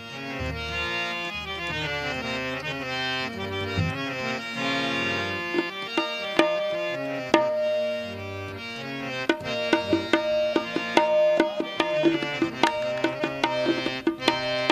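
Qawwali instrumental passage: a harmonium playing a stepping melody over quick tabla strokes.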